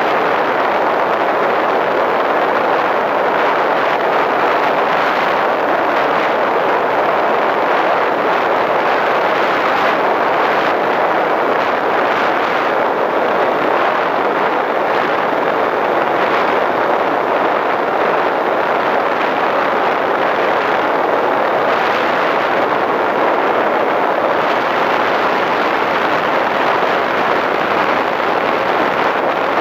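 Steady, loud rushing of airflow over the onboard camera microphone of a Skywalker FPV model plane in flight.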